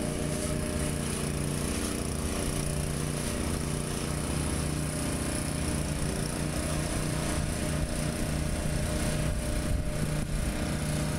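Small engine of turf maintenance equipment running steadily at constant speed.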